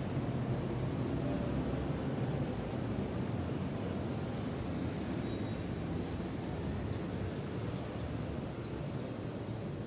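Steady low background rumble, with faint, short high chirps through the middle, like small birds calling.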